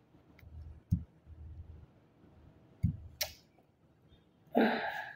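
Two soft knocks about two seconds apart, a brief hiss, and a short breath-like sound near the end.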